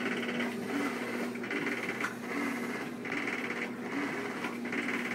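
Whirlpool Cabrio top-load washer agitating, with a rattling grind that comes in regular bursts about every second and a half over a steady motor hum. The owner wonders whether the rattle is worn bearings.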